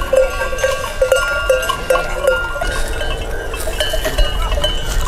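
Many bells on a flock of sheep clanking and ringing irregularly together as the animals move.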